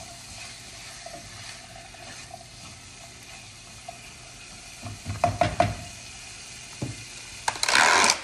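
Sausage and vegetables sizzling gently in butter in a saucepan while being stirred with a silicone spoon. There are a few knocks of the spoon against the pan about five seconds in, and a short, louder rustling clatter near the end.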